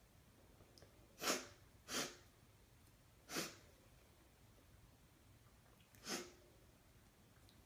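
A woman sneezing four times in short, sharp bursts: three within about two seconds, then one more a few seconds later. They are induced sneezes.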